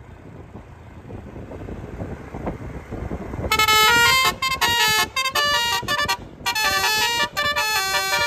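Roof-mounted basuri multi-trumpet air horn on an approaching Toyota Avanza playing a melody of quick stepped notes with short breaks, starting about three and a half seconds in. Before it, the car's tyre and engine noise builds as it comes closer.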